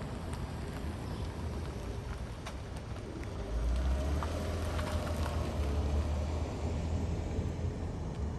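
Jet noise from a McDonnell Douglas MD-11F three-engine freighter flying overhead: a steady low rumble that swells and deepens about three and a half seconds in.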